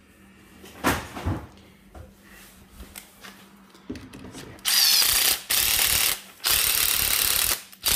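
Cordless drill run in four short bursts in the second half, its motor whine wavering as the trigger is worked, cleaning up a plastic snowmobile slide (hyfax). Before it come quieter handling sounds and a sharp click.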